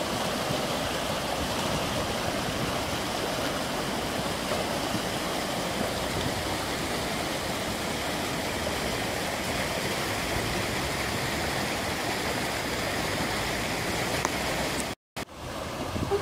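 Wadi in spate after heavy rain, its muddy floodwater rushing over a stony bed in a steady rush of flowing water. The sound cuts out for a moment near the end.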